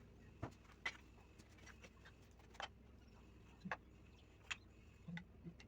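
Faint, scattered light clicks and taps, about seven in under six seconds at an uneven pace, over a low steady hum: small wooden tiles being handled and set against one another by hand.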